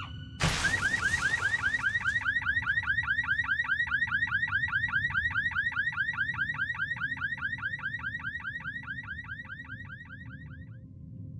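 An electronic, alarm-like warbling tone. A sharp hit comes about half a second in, then rapid falling chirps, several a second, which fade slowly and stop near the end.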